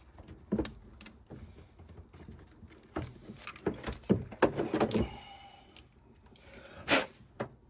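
Scattered clicks, taps and light rattles of hands handling a circuit test probe and wiring connectors, with one louder sharp click about seven seconds in.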